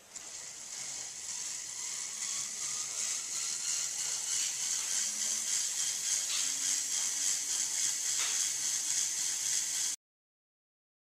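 Small electric motor and plastic gear train of a ROKR Emperor Scorpion animated model running its animation: a steady whirring hiss that builds up over the first second, with faint clicks. It cuts off suddenly near the end.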